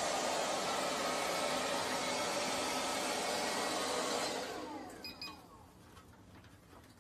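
Robot vacuum cleaner running with a steady whirring hiss. About four seconds in its motor winds down with a falling whine, and the sound drops away.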